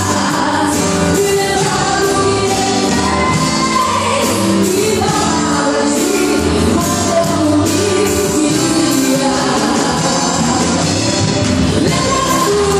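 A woman singing a gospel worship song into a microphone over a live band, amplified through the hall's sound system.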